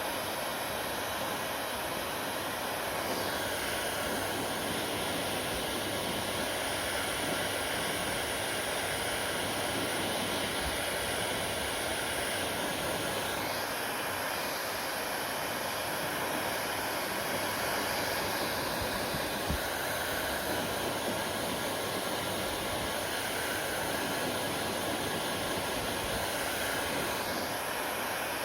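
Hair dryer running steadily, a continuous rush of blown air with a faint motor whine.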